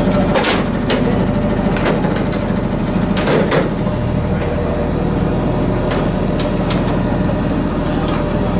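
An engine idling steadily, with scattered clicks and metallic clanks of ratchet tie-down straps being worked around a car's wheel on a transporter's metal deck.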